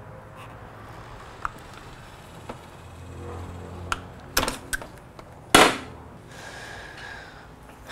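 Hand-tool work on a motorcycle wiring connector: a flathead screwdriver and fingers prying at a plastic plug, with scattered light clicks and a louder clatter about five and a half seconds in.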